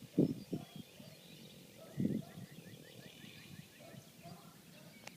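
A sleeping pet snoring quietly: two short, low snores about two seconds apart, one near the start and one about two seconds in.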